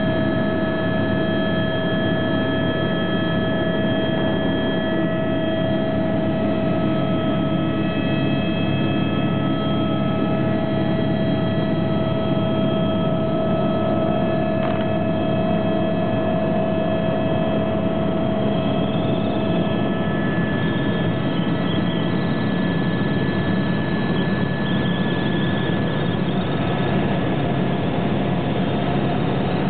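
Helicopter in flight heard from inside the cabin: a steady drone of engine and rotors with several steady whining tones on top, one of which shifts slightly in pitch about two-thirds of the way through.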